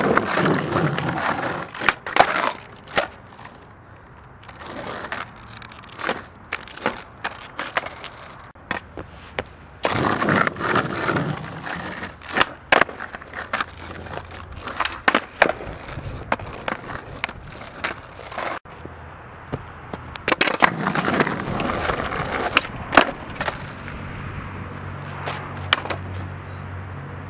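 Skateboard wheels rolling over rough pavement in three passes, about ten seconds apart, with sharp clacks of the board's deck and tail striking the ground scattered throughout.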